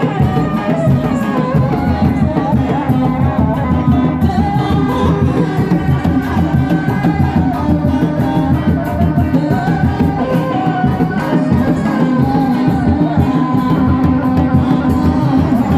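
Kuda lumping accompaniment music: steady drumming with a singing voice over it.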